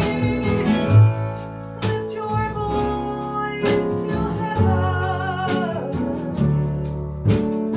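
A live band playing a song, with guitar and a wavering melody line over a steady beat.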